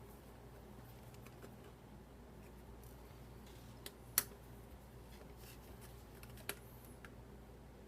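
A few sharp, small clicks and taps of a tiny Phillips screwdriver working the back-panel screws of a laptop, the loudest a little past four seconds in, over a faint steady hum.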